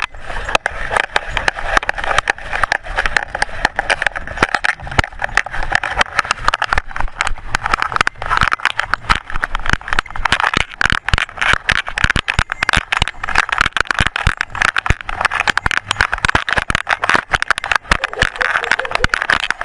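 Dense, irregular clicking and rattling of a collar-mounted camera housing being jostled as a dog walks, over a steady rushing noise.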